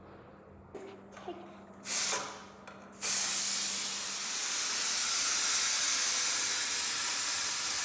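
Food hitting hot oil in a pan: a short loud sizzle about two seconds in, then from about three seconds a loud, steady sizzle, after a few small knocks.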